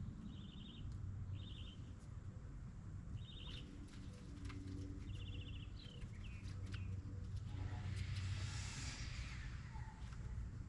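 A bird chirping outdoors in short, fast trills, four times in the first half, over a steady low rumble, with a few light clicks. A hiss swells and fades about eight seconds in.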